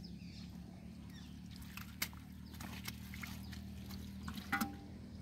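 Faint rustling and light knocks of hands working in wet grass and mud while catfish are handled, over a steady low engine-like hum. A short pitched animal call comes about four and a half seconds in.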